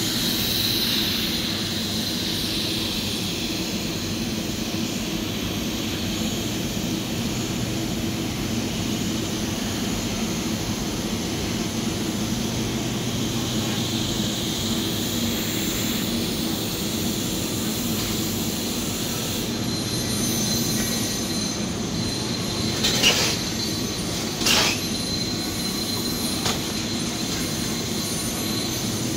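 Steady hum and hiss of TIG welding on a carbon steel pipe joint: the welding set and the pipe shop's machinery drone under the quiet arc. Two short sharp noises come about three-quarters of the way through.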